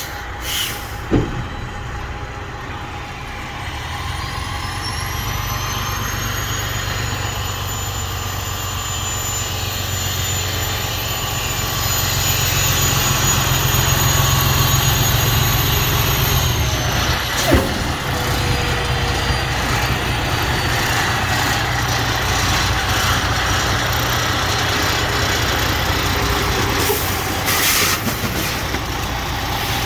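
Diesel engine of a Freightliner Columbia truck running under way on a test after a drive axle replacement, a steady low rumble that grows louder partway through. A high whine rises over a few seconds, holds, then fades, and a few short clicks and knocks sound near the start, in the middle and near the end.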